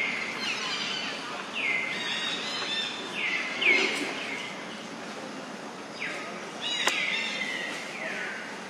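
Birds calling: a series of short whistled calls, each falling in pitch, repeated every second or so, with a couple of sharp clicks in between.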